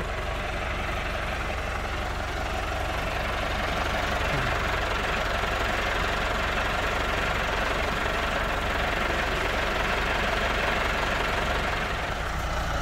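Massey Ferguson 385 tractor's freshly rebuilt four-cylinder diesel engine idling steadily.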